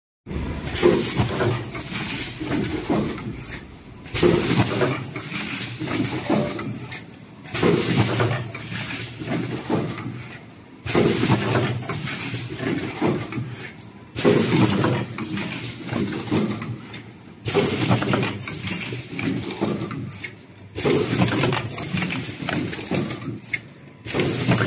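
Automatic cup-shaped mask headband welding machine cycling: a burst of machine noise with a high hiss starts sharply and fades, repeating about every three seconds.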